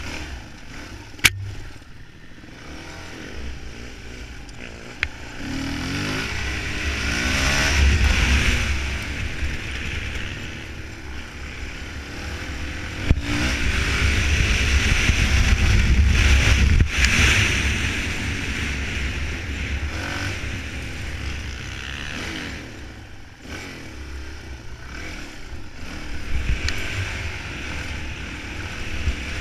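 Suzuki DR-Z400E's single-cylinder four-stroke engine running under load while the bike is ridden on dirt tracks, rising and falling with the throttle, at its loudest in two long pulls through the middle. A few sharp knocks come through, the first about a second in.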